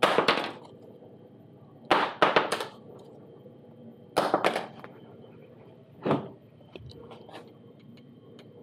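Broken plastic propeller pieces from a crashed DJI Phantom 4 Pro are tossed one after another onto a workbench cutting mat: a handful of short, sharp clatters, one a quick run of three about two seconds in, with a few light ticks near the end.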